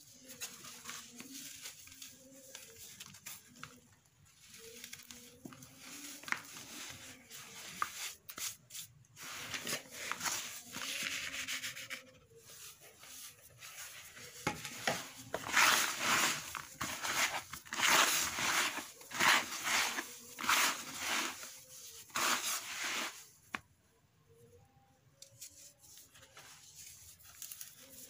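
Dry sand-and-cement lumps being crumbled and rubbed apart by hand in a plastic bucket: gritty crunching and scraping made of many short strokes, loudest and busiest a little past the middle, then dropping away briefly.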